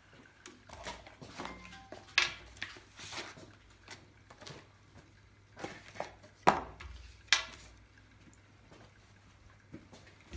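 Handling noises: scattered sharp clinks and knocks of small metal fittings and rustling of parts and packaging as a high-pressure hose fitting is handled, loudest about two seconds in and twice more after six seconds. A faint steady low hum lies underneath.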